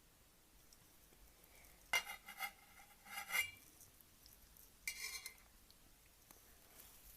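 Eating utensils clinking and scraping against a ramen bowl in three short bursts, each with a brief ringing tone, about two, three and five seconds in.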